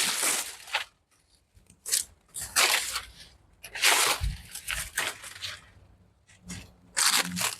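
Dry, dead banana leaves and stalks being torn and cut away by hand, in several separate crackling rustles with short pauses between them.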